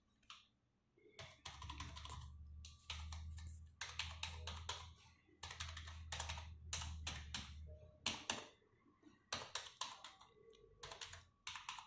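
Computer keyboard keys pressed one after another in quick runs of clicks with short pauses, each key being checked to find which ones fail to register.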